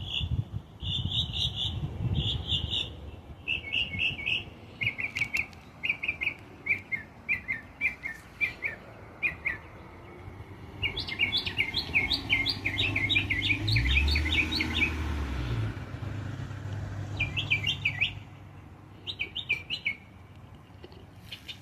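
A songbird singing in short repeated phrases of high chirps, with a faster, denser run of chirps about halfway through. A low rumble sits underneath during that stretch.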